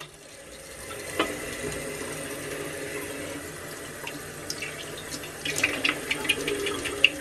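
Bathroom tap running into a sink, the flow building up over the first second as it is turned on. Hands wash under the stream, with short splashes in the second half.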